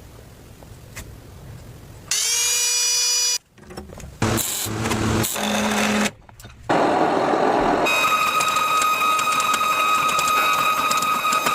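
Machinery in several abruptly cut segments: a motor whine that rises slightly as it starts about two seconds in and stops suddenly, then a few short sounds, then a steady grinding noise with a high whine and rapid clicking through the second half.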